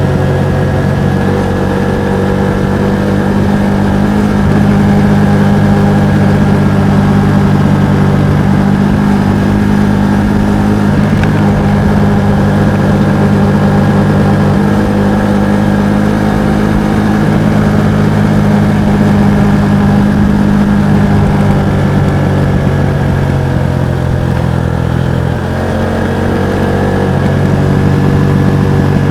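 Kawasaki Estrella's single-cylinder four-stroke engine and exhaust running steadily under way. About 25 seconds in the engine note drops briefly, then picks up again.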